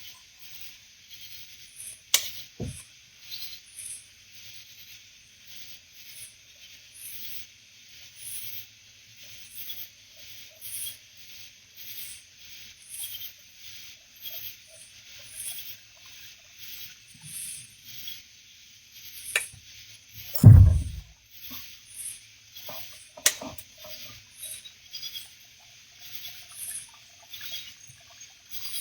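A night insect chorus: a steady high drone with a higher chirp repeating a little more than once a second. A few sharp knocks stand out, the loudest a low thump about twenty seconds in.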